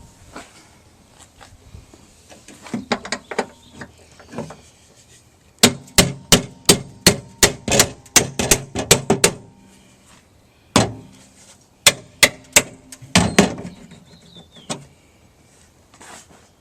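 A hammer driving a chisel against sheet steel to knock off a leftover spot weld in a minivan's door check pocket. A few light taps, then a fast run of strikes at about three to four a second, then scattered single blows with a slight metallic ring.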